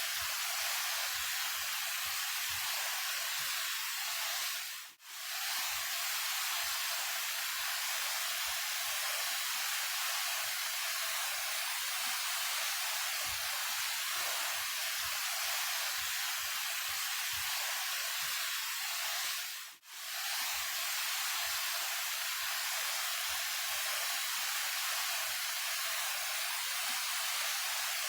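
A 28-metre mountain waterfall rushing steadily, a hissy roar with little bass. The sound drops out briefly twice, about five seconds in and near twenty seconds, at the joins of the repeated loop.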